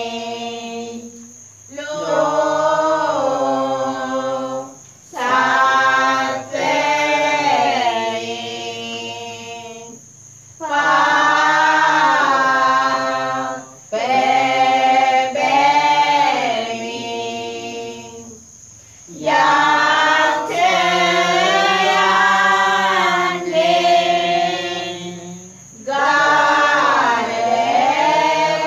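Group of voices singing a Sinhala pasan, a Lenten passion hymn, unaccompanied, in long drawn-out phrases with short pauses for breath between them.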